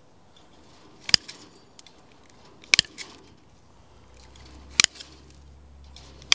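Bolt cutters snipping through old chain-link fence wire: a sharp snap every one and a half to two seconds, four in all, the last right at the end.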